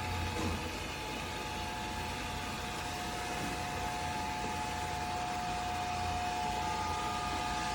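Robot vacuum running: a steady whir of its suction fan with a constant whine and a low hum underneath.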